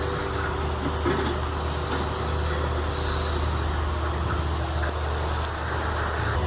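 A person snoring heavily: a deep, steady, engine-like rumble that swells slightly and eases with the breathing.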